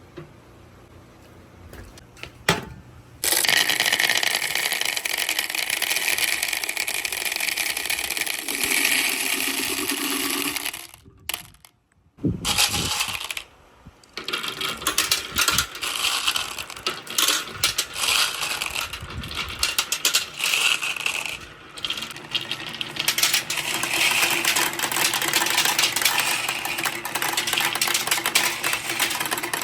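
A mass of marble-run balls clattering down the track, hitting metal and rolling on wood as a dense, continuous rattle. A couple of single clicks come first, the clatter sets in about three seconds in, breaks off for a couple of seconds near the middle, then resumes in uneven waves.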